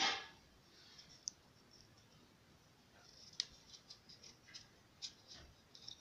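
Metal spoons and wooden sticks handled and fitted together by hand: a clatter right at the start, a single click about a second in, then a run of light, irregular clicks and taps in the second half.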